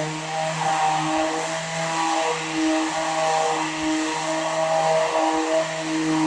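Electric power sander running steadily while sanding back dried floor filler: a motor hum under a gritty sanding hiss.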